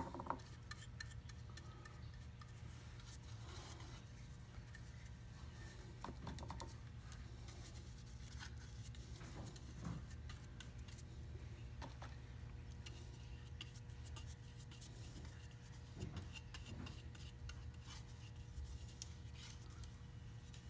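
Faint rubbing and scratching of a small brush spreading epoxy resin over fiberglass cloth strips on a wooden model keel, with scattered light clicks. A steady low hum runs underneath.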